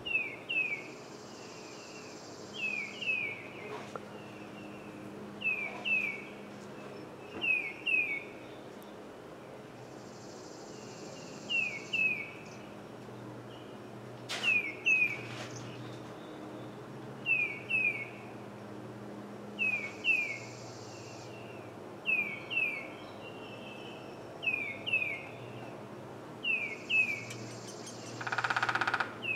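A songbird repeating a pair of short, down-slurred whistled notes about every two seconds. A high hissing buzz lasting a second or so comes in about every nine seconds.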